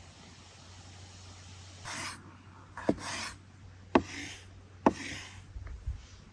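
Knife cutting through food on a wooden board: a short rasping slice, then a sharp knock of the blade on the board, about once a second.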